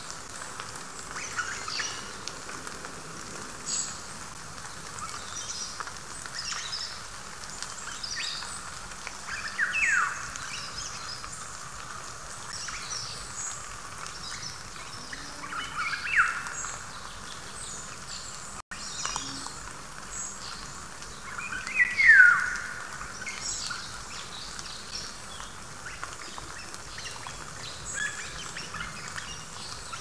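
Forest songbirds chirping in many different voices, with three louder whistled calls that slide down in pitch, spaced about six seconds apart, the last the loudest. Light rain patters steadily underneath.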